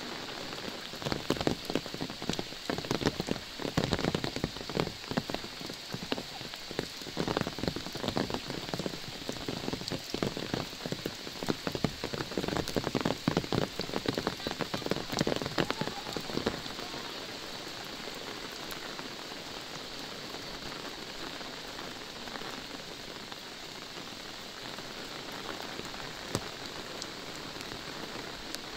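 Steady rain falling on an umbrella held just overhead. During the first half, a run of louder, uneven drop hits lands on it, and these stop about sixteen seconds in, leaving the even hiss of rain.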